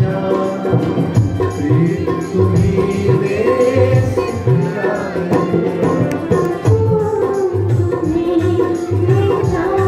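Indian film-song music with tabla keeping a steady rhythm under a gliding melodic line.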